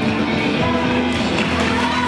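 Recorded music playing with held notes, over an audience applauding and cheering.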